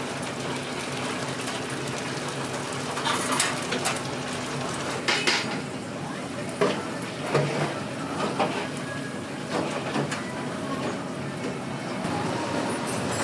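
Steel tongs clicking and clattering against a stainless fryer rack and tray, a sharp clack every second or two, over the steady hiss of food deep-frying in oil.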